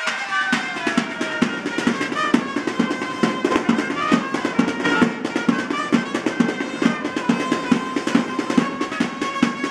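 Small marching band playing: a snare drum and a bass drum keep a steady beat under a brass horn melody.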